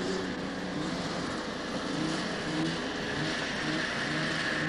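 Two snowmobile engines running as a child's small sled and a full-size sled ride over patchy snow, their pitch rising and falling with the throttle, with a steady high whine over them.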